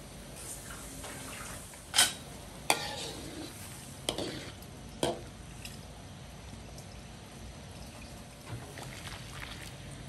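Vegetables simmering in water in a wok, with a metal spoon stirring. The spoon strikes the wok in four sharp clinks between about 2 and 5 seconds in; the first clink is the loudest.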